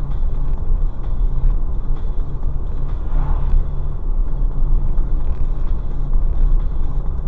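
Car driving at steady speed heard from inside the cabin: engine and tyre noise on the asphalt make a steady low rumble.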